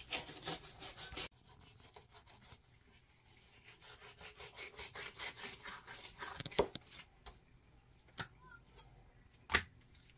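Knife sawing through fish skin against a cutting board in quick back-and-forth strokes as a bass fillet is skinned, in two spells. A few sharp knocks come near the end.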